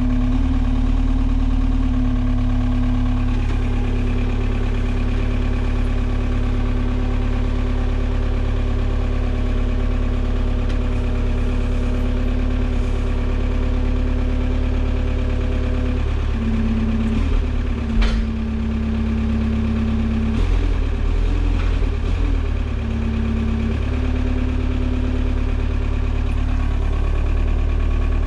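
Forklift running steadily with a strong hum and low rumble, its pitch dipping briefly twice in the second half as the lift is worked. There is a single sharp knock about two-thirds of the way through.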